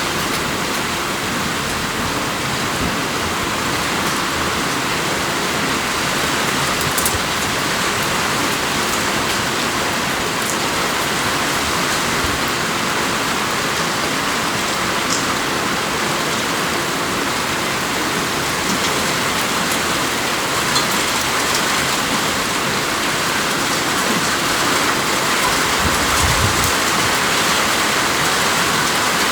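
Steady rain falling, an even hiss of many drops with no let-up, and a brief low rumble near the end.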